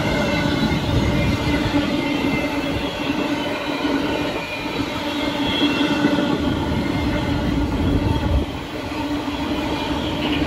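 Empty intermodal well cars of a freight train rolling past below, steel wheels rumbling and clattering on the rails, with a steady tone running over the noise.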